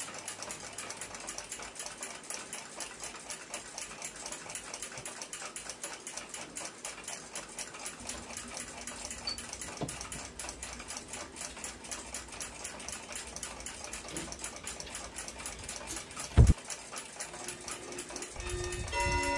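Mechanical clocks ticking steadily in rapid overlapping beats, with one loud knock about three-quarters of the way through as the wooden hand-screw clamps are taken off. Near the end a clock chime begins to ring.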